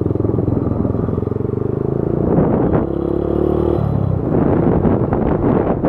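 Motorcycle engine running under way, its note climbing and then dropping about four seconds in. After the drop, wind noise on the microphone takes over from the engine note.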